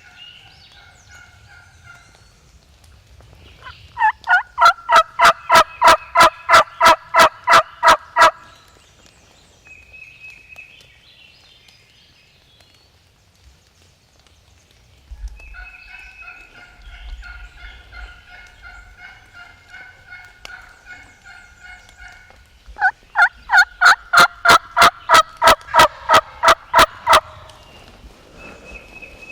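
Turkey yelping: two loud runs of about fifteen evenly spaced notes each, some three or four a second, with quieter, softer turkey calling between them.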